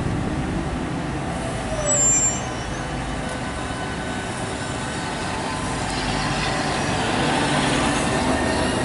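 Southeastern Class 395 'Javelin' electric multiple unit moving slowly along the platform, its running hum and rumble growing louder as it comes nearer. A brief high squeak sounds about two seconds in.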